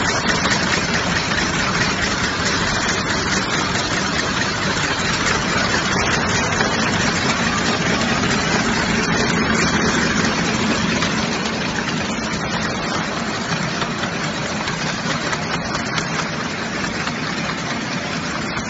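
High-speed bottle cartoning machine running: a steady, dense mechanical clatter and whir from its conveyor and carton-packing mechanism.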